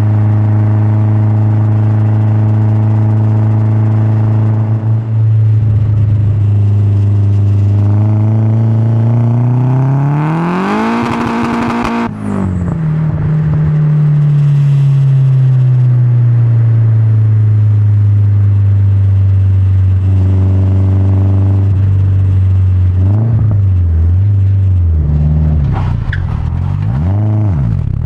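Nissan S14's turbocharged SR20DET four-cylinder running through a decatted 3-inch exhaust. It holds a steady speed, then revs up hard for a few seconds. The sound cuts off abruptly, as on a lift-off or gear change, and the engine speed falls away slowly, with several short blips up and down near the end.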